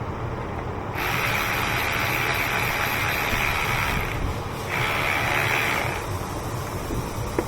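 Ratchet wrench spinning in two runs, about three seconds and then just over a second, over a steady low hum.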